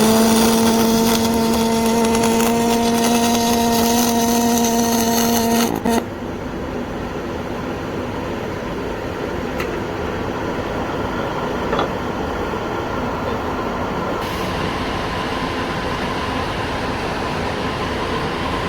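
MIG/MAG semi-automatic welding: the arc crackles with a steady hum from the welder for about six seconds, then cuts off suddenly, leaving a quieter steady background hum.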